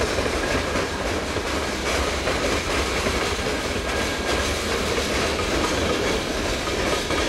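Freight cars, covered hoppers and a boxcar, rolling past at speed: a steady rumble with wheels clacking over the rail joints.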